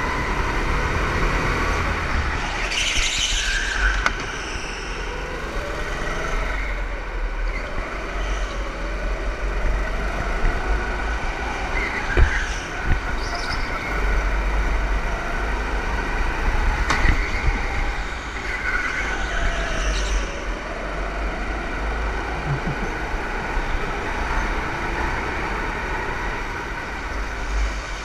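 Go-kart engines running, their pitch rising and falling again and again as the karts accelerate and slow through the corners, over a steady low rumble. Two sharp knocks come about halfway through.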